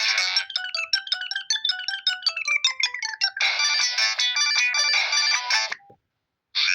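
Samsung SGH-E630 default ringtone playing: a run of short electronic notes stepping down in pitch, then fuller chords. It cuts off suddenly about six seconds in, and after a brief silence the next ringtone starts.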